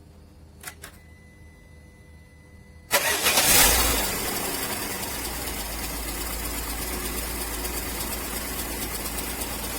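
Peugeot 307 engine cranked by its newly fitted starter motor, which now engages: it fires about three seconds in and settles within a second or so into a steady idle. Two faint clicks come about a second in, before the start.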